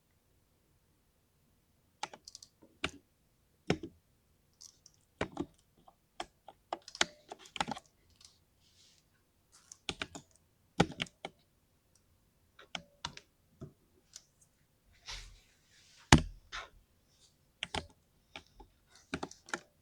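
An RGB LED keyboard being typed on, keys clacking in irregular runs that start about two seconds in. One heavier, deeper stroke comes about three-quarters of the way through.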